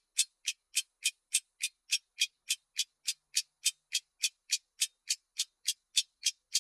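Clock ticking sound: sharp, high ticks at an even, brisk pace of about three and a half a second, with silence between them.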